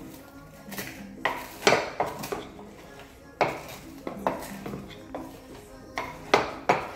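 Wooden pestle pounding fried green plantains in a wooden pilón (mortar), mashing them: a run of hard, irregularly spaced knocks, several close together about a second in and two more near the end.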